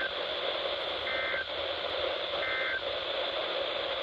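NOAA Weather Radio sending the EAS/SAME end-of-message code: short two-tone digital data bursts about 1.4 seconds apart over steady radio static, three in all with the first clipped at the start. The bursts mark the end of the required weekly test broadcast.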